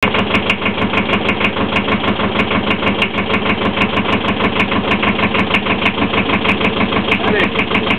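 An engine idling steadily with an even beat, about five or six pulses a second.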